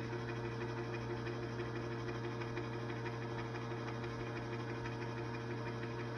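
GE Opal 2.0 nugget ice maker running with a steady machine hum.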